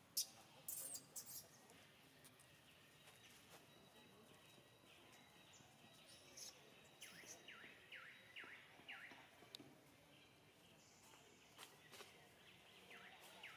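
Faint outdoor ambience with a quick run of about five whistled calls, each falling in pitch, about halfway through, and another run starting near the end. A few sharp clicks sound in the first second and a half.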